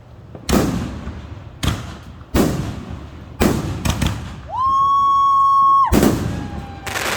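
Fireworks going off: about seven sharp bangs, roughly one a second. About four and a half seconds in, a whistling firework gives a steady high whistle for about a second and a half, cut off by a bang.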